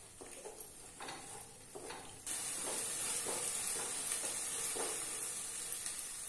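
Wooden spatula stirring and scraping a thick onion, ginger, garlic and green-chilli paste as it fries in oil in a nonstick kadhai, with sizzling. A little over two seconds in, a steady high hiss comes in suddenly and holds.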